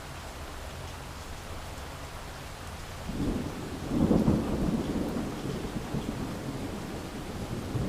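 Steady rain, then a roll of thunder that breaks in about three seconds in, is loudest a second later and rumbles on under the rain.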